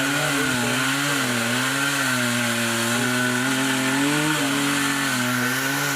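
Chainsaw engine running steadily, its pitch wavering slightly up and down.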